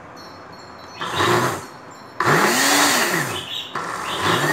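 Mondial countertop blender pulsed in three short bursts through a thick green-banana purée. The motor's pitch rises as each pulse spins up, and on the longest pulse it falls away again as the blade coasts down.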